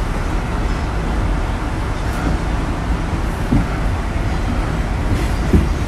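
Interior running noise of a New York City 6 subway train on elevated track: a steady rumble of wheels on rails, with two short clunks, one past halfway and one near the end.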